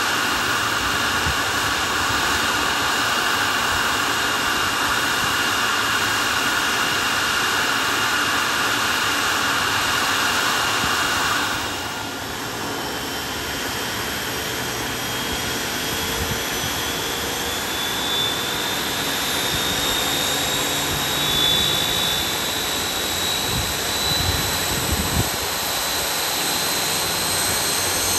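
Boeing 737 MAX 8's CFM LEAP-1B turbofan during engine start. A steady rushing hiss with a thin whistle cuts down abruptly about halfway through. Then a high whine climbs slowly in pitch as the engine spools up.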